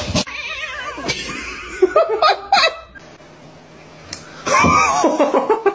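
People laughing in short bursts, about two seconds in and again near the end.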